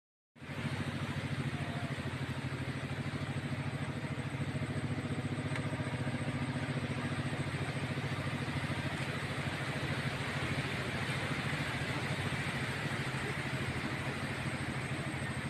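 A small engine idling steadily, a low hum with a rapid, even pulse. It comes in abruptly about half a second in.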